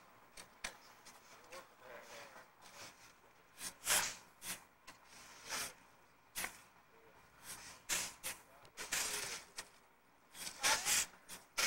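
Shovels scraping into a pile of sand and tipping loads into a wheelbarrow: a series of short scrapes with pauses between them, with faint voices in the background.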